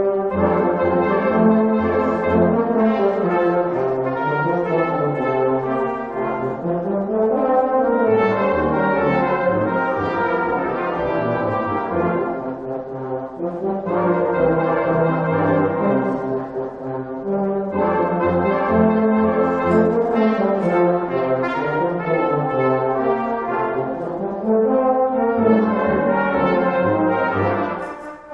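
Brass band music: several brass instruments playing sustained chords together in phrases a few seconds long.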